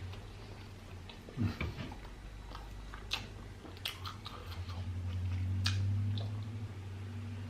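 Close-miked chewing and biting of chicken biryani and naan, with sharp wet mouth clicks scattered throughout. Under it runs a low hum that swells in the second half.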